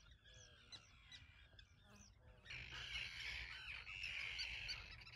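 Faint bird calls and chirps from many birds, thickening into a louder, denser chorus about two and a half seconds in.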